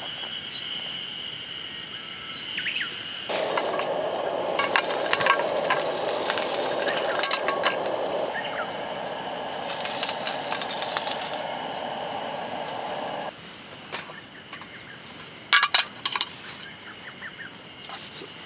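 Clinking and tapping of metal camp cookware and utensils on a camp kitchen table, with sharp clicks scattered throughout and two loud ones near the end. A steady rushing noise starts about three seconds in and stops abruptly about ten seconds later.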